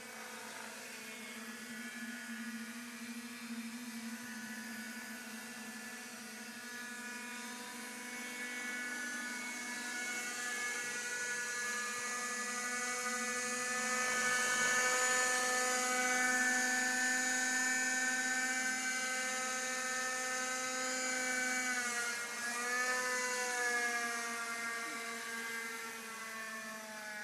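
Whine of radio-controlled model aircraft, a helicopter and a homemade tricopter, in flight. It gets louder around the middle, and the pitch dips and rises a few times near the end.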